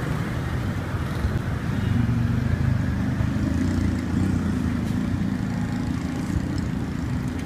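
Road traffic: motor vehicle engines humming steadily, swelling a little about two seconds in.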